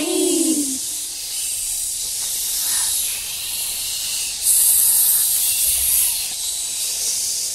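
A sung phrase ends just under a second in. A steady, high swishing hiss made by children follows, imitating the long meadow grass. It grows louder about four and a half seconds in.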